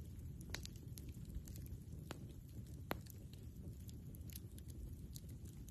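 Campfire crackling: scattered small pops and snaps over a low steady rumble, with a few louder pops, the loudest about three seconds in.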